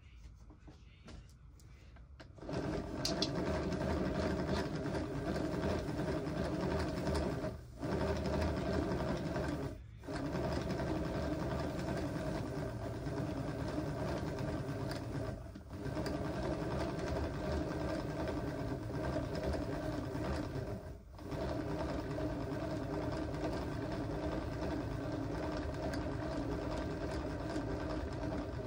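A small motor-driven machine running steadily with a whirring hum, dropping off briefly about four times and picking straight back up.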